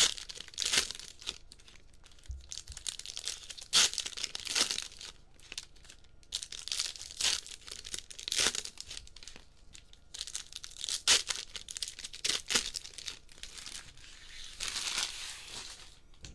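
Foil baseball-card pack wrappers being torn open and crinkled in the hands, in repeated bunches of crackling tears with short pauses between.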